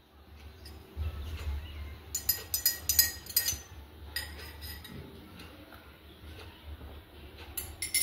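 Metal spoon stirring a drink in a glass tumbler, clinking against the glass in a quick run of strikes about two seconds in, then a single clink and a few more near the end.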